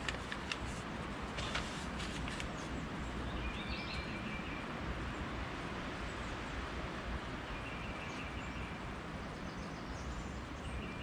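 Wind noise on the microphone, with a bird chirping short runs of quick notes a few times. Faint pencil scratches on paper come in the first couple of seconds.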